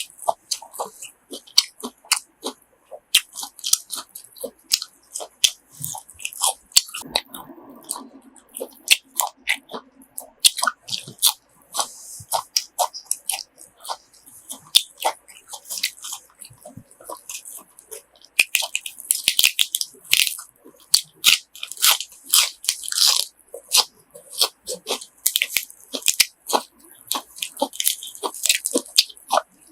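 Close-miked chewing of crunchy grilled pork offal: a dense run of wet crunches and teeth clicks, busier in the last third.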